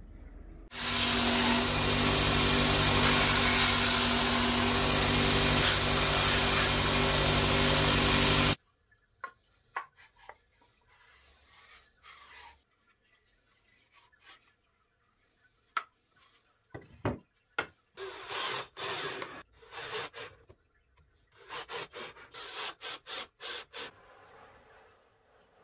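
A power tool running steadily on wood for about eight seconds, then stopping abruptly. After it come scattered light clicks and short bursts of rubbing and scraping, wood being handled and worked by hand.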